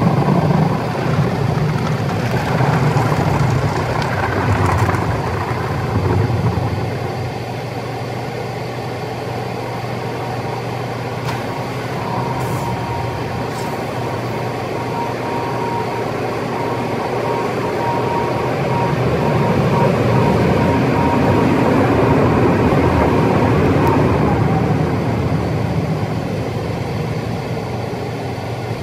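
A vehicle running steadily, with a thin steady high tone sounding for about twelve seconds in the middle.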